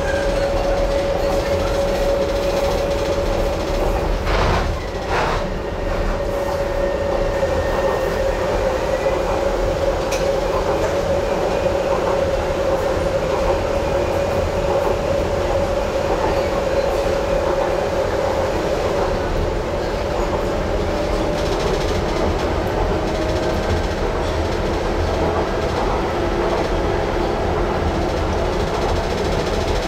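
Docklands Light Railway train running along its track: a steady motor whine over a low rumble, rising slightly in pitch in the second half. There are two short knocks from the running gear about four and five seconds in.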